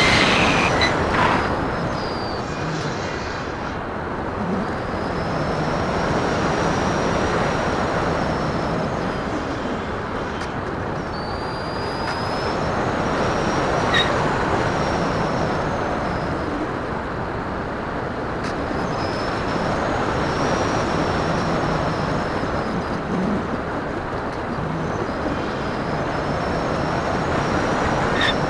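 Wind rushing over the onboard camera microphone of a Phoenix 2000 electric RC glider in flight, with the motor's faint high whine slowly rising and falling.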